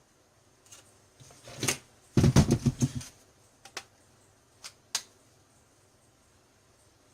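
Handling of the opened cordless impact drill and its parts: a few sharp clicks, then a quick rattle of about eight knocks lasting under a second, and two or three more single clicks.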